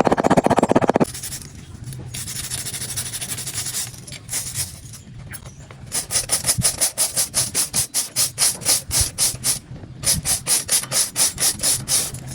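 A loud, rapid crackle that cuts off about a second in, then a hand tool rasping back and forth on metal in regular strokes, about four a second, with a short pause near the end.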